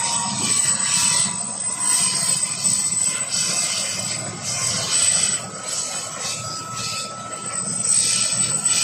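Military helicopter running on the ground with its rotor turning: a steady turbine whine and high hiss over a low rotor drone. A second, higher whine tone comes in about halfway through.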